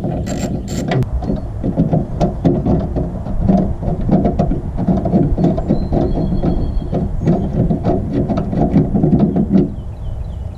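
10 mm socket ratchet clicking rapidly and continuously as bolts are backed out, stopping shortly before the end.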